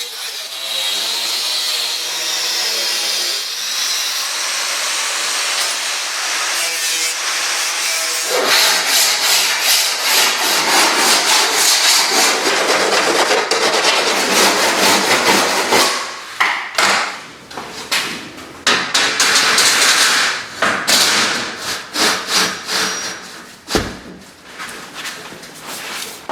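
Wood being sawn: a scraping, rasping sound that grows louder about eight seconds in, then breaks into short, uneven strokes in the last ten seconds.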